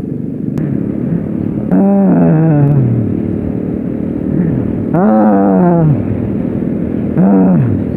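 Small motorcycle engine running under way over rough road, with its revs rising and falling three times as the throttle is opened and eased.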